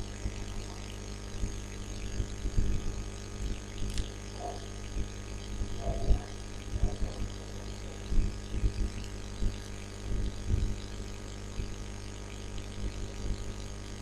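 A steady low electrical hum on the lecture recording, with a few faint short knocks.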